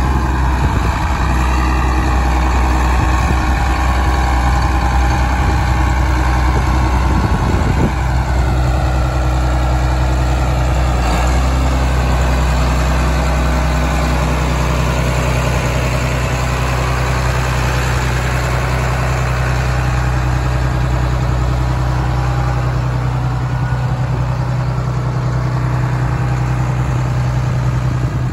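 John Deere 8200 MFWD tractor's six-cylinder diesel engine running at a steady idle: a deep, even drone, with a faint wavering whine over it during the first several seconds.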